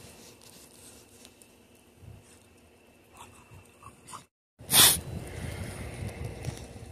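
Dogs pawing and digging in fresh snow, giving irregular soft crunching over a low rumble. It starts after a brief dropout about four seconds in, with a short loud rush of noise.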